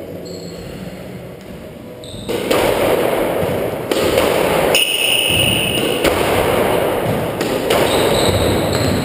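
Squash rally: the ball thuds off the court walls and is struck by rackets, with a noisy rush of sound starting a couple of seconds in. A brief high squeak comes about five seconds in.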